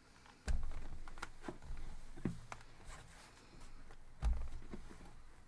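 Dull thumps as a household iron is set down and pressed onto cotton fabric on a padded pressing mat, three times about two seconds apart, with small clicks and faint creaks between.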